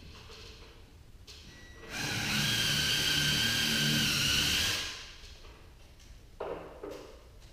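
A power drill runs steadily for about three seconds, most likely driving a fastener into the torsion-spring hardware above the door. Two short knocks follow near the end.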